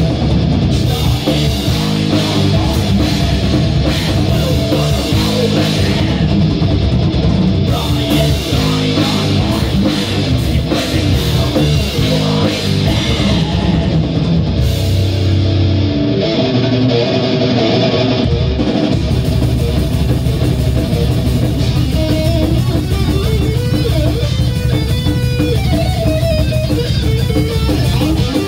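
Live heavy metal played loud by a band: distorted electric guitar, bass guitar and drum kit. The cymbals drop out for a few seconds around the middle. A guitar melody line comes through toward the end.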